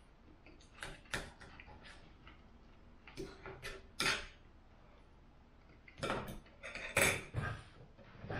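Knife and fork clinking and scraping against a dinner plate while cutting food, in irregular bursts of short clicks and scrapes.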